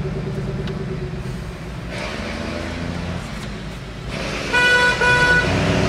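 Vehicle engine and road noise heard from inside a car cabin on a dirt road, with two short horn toots back to back about four and a half seconds in.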